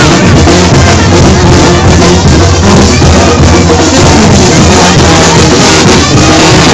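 Loud live brass band (banda de viento) with drums playing continuously, recorded so close that the sound is overloaded.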